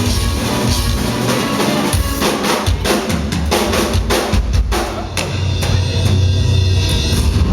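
Live heavy metal drum kit solo: fast, dense strokes on snare and drums over bass drum, in a loud, reverberant room.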